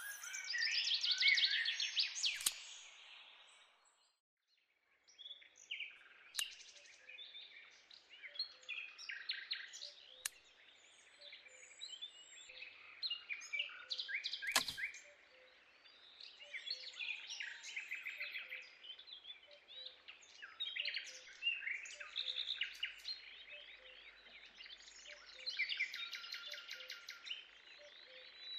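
Many small birds chirping and twittering, broken by a second of silence about four seconds in. A few sharp clicks of small wooden sticks being handled, the loudest about halfway through.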